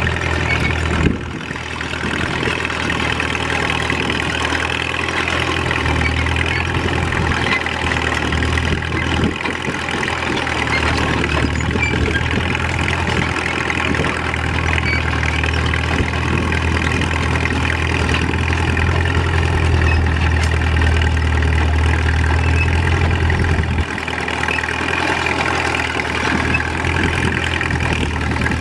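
1941 Caterpillar D2 crawler tractor's four-cylinder diesel engine running steadily while the crawler pulls a two-bottom moldboard plow through the ground. The level dips briefly about a second in and again about three-quarters of the way through.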